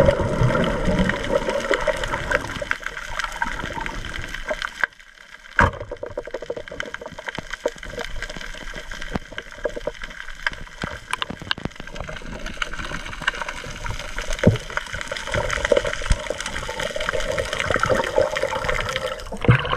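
Underwater noise: a steady rush of moving water thick with fine crackling clicks, briefly quieter about five seconds in.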